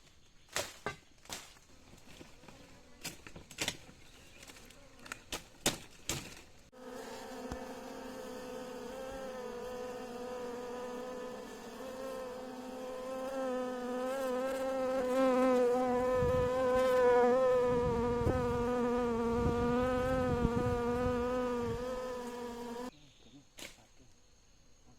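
Steady buzzing of bees close by, one held pitch with a slight waver, starting abruptly about seven seconds in and cutting off sharply near the end, with a few low thumps in the middle. Scattered sharp knocks come before the buzzing.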